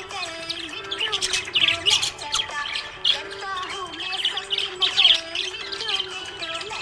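Budgerigars chirping and warbling in quick, busy bursts, over background music with a sustained melody.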